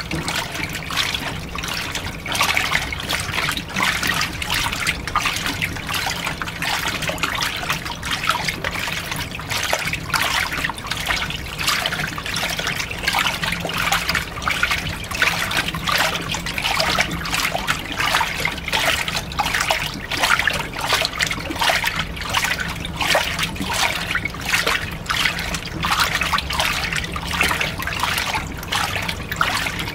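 Washing machine filling with water, the water splashing and trickling steadily into the drum, with a faint low hum underneath.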